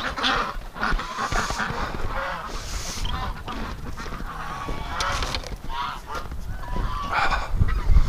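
A flock of domestic waterfowl giving scattered short calls, over a steady low rumble of wind buffeting the microphone.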